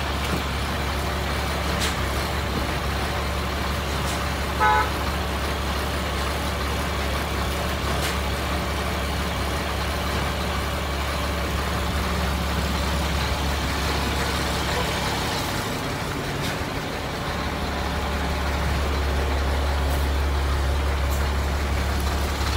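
Heavy diesel truck engine idling, a steady low hum. A short high beep sounds about five seconds in, and the engine note drops away briefly around sixteen seconds before coming back slightly louder.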